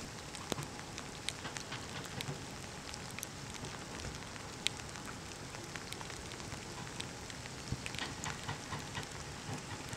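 Steady rain falling, with irregular sharp ticks of individual drops landing close by.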